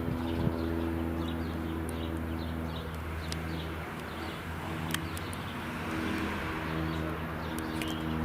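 Small birds chirping over a steady, low, pitched engine hum, with a couple of sharp clicks, one about half a second in and one about five seconds in.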